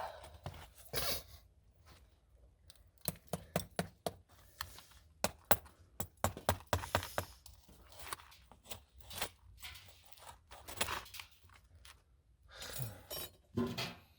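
An irregular run of sharp clicks, clinks and light knocks from small hard objects being handled, with a few short scraping sounds between them.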